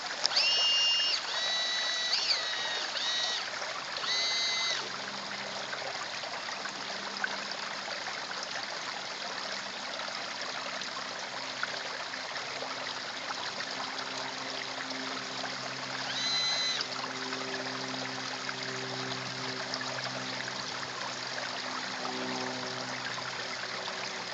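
Garden pond water trickling steadily. A few short, high whistled notes come in the first five seconds and once more about sixteen seconds in, and faint background music with low held notes starts about five seconds in.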